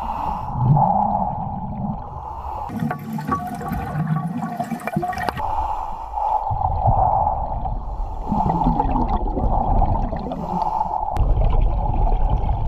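Scuba diver breathing underwater through a regulator. Exhaled bubbles gurgle and rumble in several long bursts, with a hissing breath about three seconds in.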